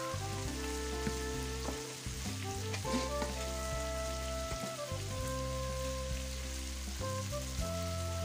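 Turmeric-coated fish pieces frying in hot oil in an iron wok, with a steady sizzle. Background music of sustained notes that change pitch in steps plays over it.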